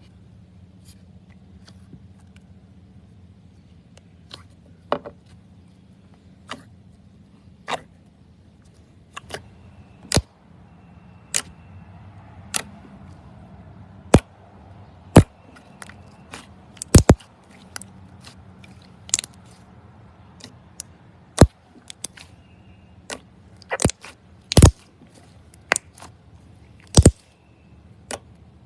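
Slime being pressed and squeezed by hand, giving irregular sharp clicks and pops that come more often and louder after about ten seconds, over a low steady hum.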